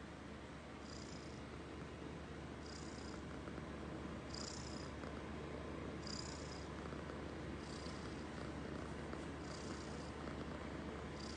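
Tabby-and-white kitten purring steadily while it is stroked, a continuous low rumble with a soft hiss recurring about every second and a half to two seconds.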